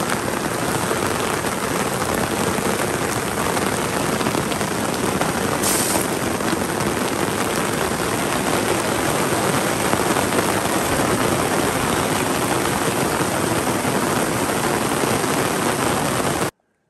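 Heavy rain pouring down in a steady hiss, heard from under a vehicle awning. It cuts off suddenly near the end.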